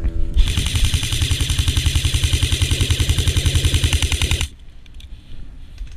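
Airsoft rifle firing a long full-auto burst: a rapid, even rattle lasting about four seconds that stops abruptly, followed by a few faint ticks.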